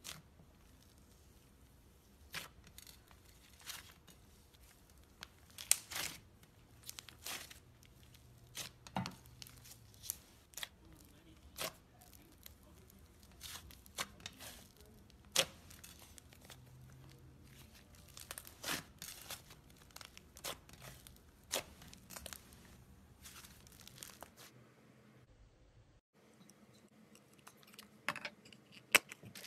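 Thick white slime being pressed and pulled apart by fingers, tearing with irregular sharp crackles and pops. After a short break near the end, a few more crackles from a green slime being handled.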